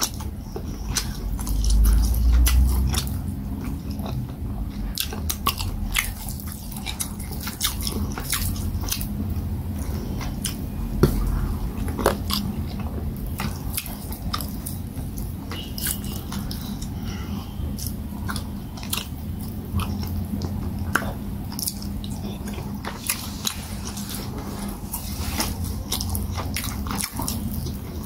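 Close-miked chewing of fufu and peanut soup, with many short clicks and a louder low thud about two seconds in.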